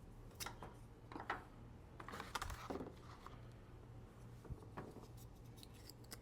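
Faint, scattered light clicks and rubbing from hands working a car headlight bulb out of its housing and at its plastic wiring connector, over a low steady hum.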